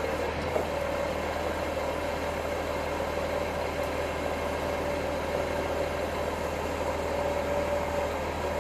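Steady machine drone: a constant mid-pitched whine over a low hum, unchanging throughout.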